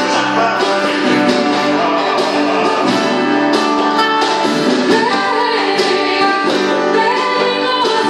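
Worship song from a church music group: guitar accompaniment with singing.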